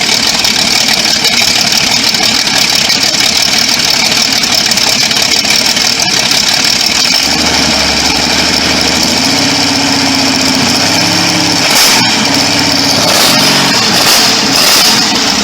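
V12 engine running steadily. About seven seconds in, a deeper pitched note comes up that rises and falls as the engine is revved, with a sharp dip and then a few short revs near the end.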